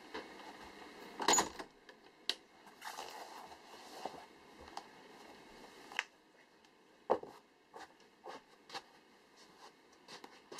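A sneaker shifting on an artificial-grass mat: scattered light scuffs, rustles and small knocks, with a louder scuff about a second in and another about seven seconds in.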